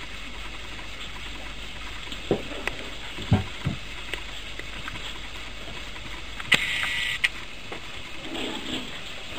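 Two puppies tussling on a dog bed: soft scuffling and a few light knocks over a steady hiss, a short high squeak about two-thirds through, and faint puppy whining near the end.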